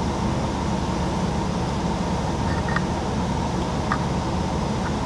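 A steady low hum fills the background. A few faint light clicks come around the middle and near the end as a rubber timing belt is worked by hand onto the engine's toothed sprockets.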